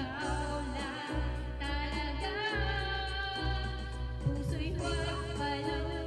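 A woman singing karaoke into a microphone over a karaoke backing track with a steady bass line.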